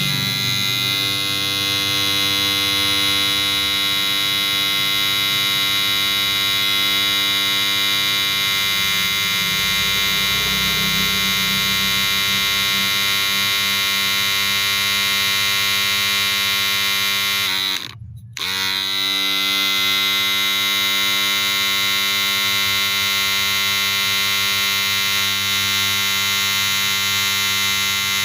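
Wahl cordless hair clipper running steadily. About 18 seconds in it is switched off for under a second, its pitch sagging as the motor winds down, then it is switched back on and spins back up to speed.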